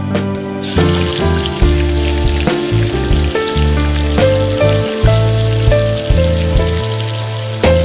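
Hot oil sizzling in a pan, a steady hiss that starts abruptly about a second in, under background music of slow melodic notes.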